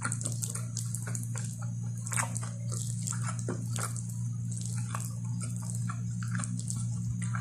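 Fingers kneading and squishing curry-soaked rice on a plate, giving irregular sticky, wet clicks and smacks. Under it runs a steady low hum.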